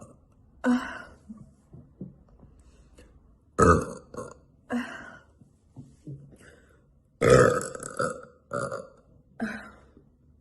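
A woman burping over and over, about a dozen belches of mixed length with short pauses between them. The loudest and longest is a drawn-out belch about seven seconds in.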